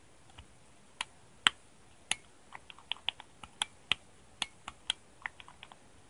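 A small rocker switch set into a shift handle is clicked again and again with the thumb. The clicks are sharp and irregular, about twenty of them and sometimes in quick pairs, starting about a second in.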